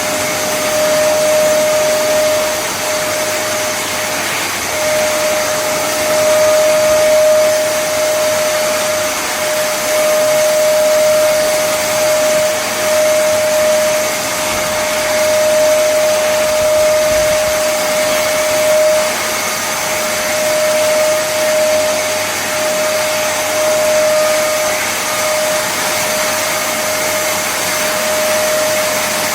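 Kärcher WD 2 Plus wet and dry vacuum cleaner running steadily: its 1000 W motor gives a constant airy rush with a steady whine on top.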